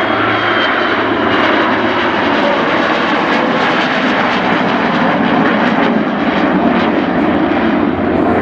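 Formation flypast of an F-22 Raptor and a piston-engined A-1 Skyraider, with a steady rush of engine noise. The Raptor's jets are at dry power, without afterburner, so they stay comparatively subdued.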